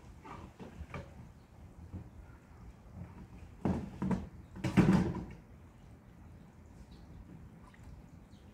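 Hollow plastic knocks and scraping as the hinged lid of a plastic storage box is handled, with a cluster of louder knocks about four to five seconds in.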